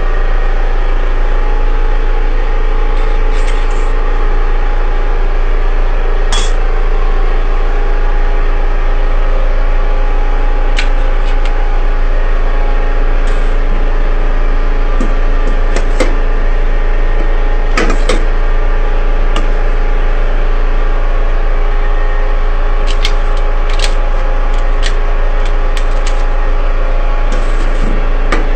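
Swiss electric yam and fufu pounding machine running, a loud steady motor hum with a few scattered light clicks and knocks.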